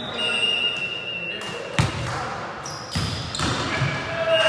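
A volleyball struck hard twice, about a second apart, with high squeaks of sneakers on the hardwood court.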